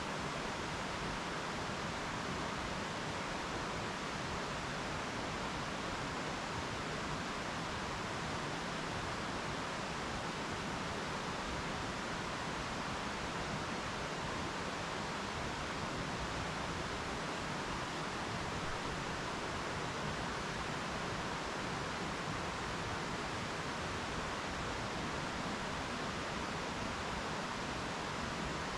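Mountain stream flowing: a steady, even rushing sound with no breaks.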